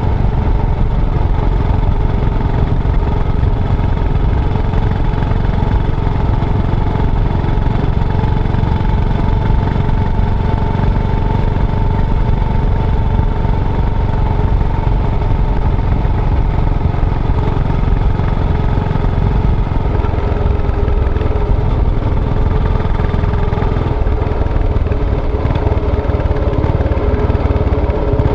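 Yamaha SR400's single-cylinder four-stroke engine running steadily, a dense low rumble with a fairly constant pitch.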